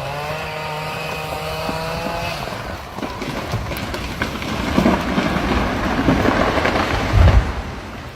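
An engine revs up and holds a steady pitch for about two seconds, then gives way to a long noisy rushing crash that ends in a heavy thump near the end.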